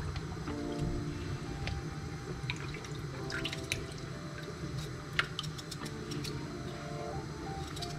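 Knife cutting raw potatoes held in the hand, the chunks dropping into a plastic bowl of water: irregular small clicks, plops and splashes, over faint background music.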